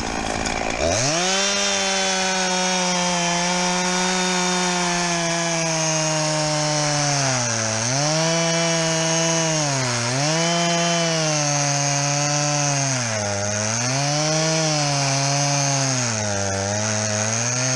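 Two-stroke chainsaw revved to full throttle about a second in, then cutting through a log, its pitch sagging and recovering several times as the chain bites into the wood.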